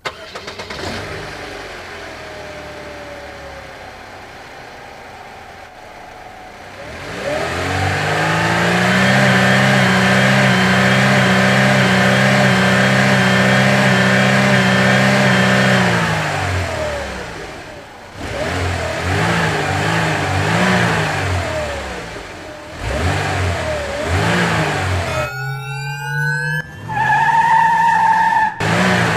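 A vehicle engine revving: it rises to a steady high-revving run for several seconds near the middle, then revs up and down repeatedly, with a quick rising whine near the end.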